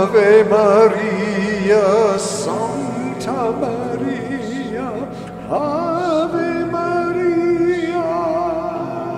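A man singing long wordless tones with a strong vibrato, a new phrase starting about five and a half seconds in, over the steady ringing of brass singing bowls.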